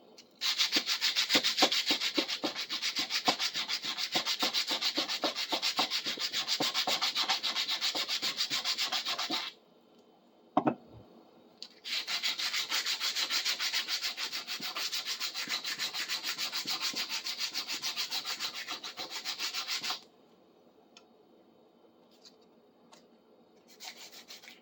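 Sandpaper rubbed in quick, steady back-and-forth strokes over a rusty metal part, in two long runs with a single knock in the short pause between them. The sandpaper is just about worn out.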